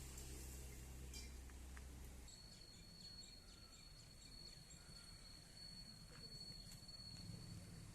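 Faint background noise: a low hum that stops about two seconds in, then a thin, steady high-pitched tone for about five seconds, with a few faint ticks.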